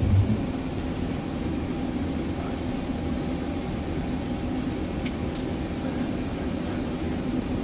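Steady cockpit noise of a Boeing 737-800 taxiing: the hum of its CFM56-7B engines and air conditioning, with a brief low thump at the very start and a few faint clicks.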